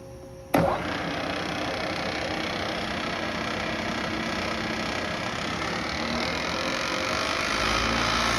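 CNC bed mill spindle starting abruptly about half a second in, then running steadily at about 1400 RPM; the sound grows somewhat louder and deeper near the end.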